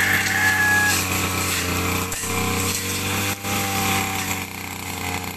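Brush cutter engine running steadily at working speed while its cutting head trims grass and weeds.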